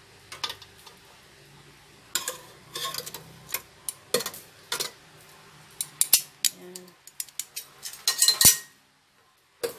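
Metal tongs clacking and scraping against a nonstick air fryer basket while pork chops are arranged in it. The sound is a scattered series of sharp clicks and knocks, with a quick run of louder clatter near the end.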